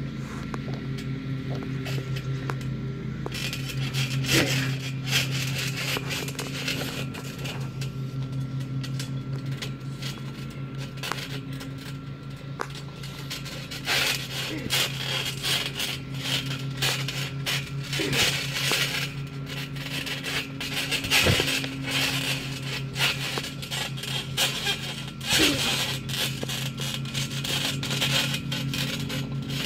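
Wrestlers moving and landing on a trampoline: irregular thuds, scrapes and creaks from the mat and springs, over a steady low hum.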